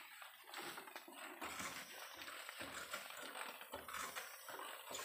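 Knapsack sprayer spraying liquid foliar fertilizer from its lance: a steady hiss of spray with dull knocks about once a second.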